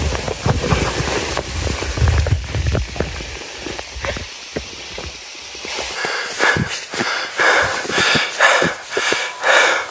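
Low rumble of wind on the microphone, then from about six seconds in a run of short crunching strokes in deep snow, about two a second.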